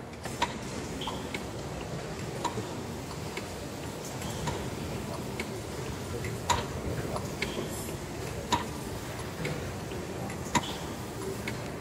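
Slow, even clicking from a running steam mill engine: a sharp click about every two seconds, with fainter clicks between them, over a steady low rumble.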